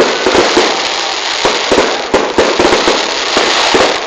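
Fireworks going off in a dense barrage: rapid, overlapping bangs and crackling with no break.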